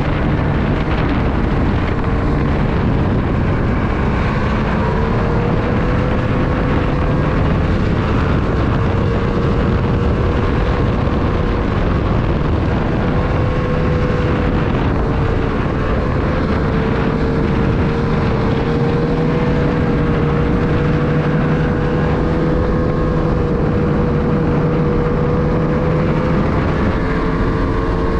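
A 2022 Ski-Doo Renegade 600R's two-stroke engine running at a steady cruising speed under way, its pitch rising slightly a few seconds in and then holding, over a constant rush of track and wind noise.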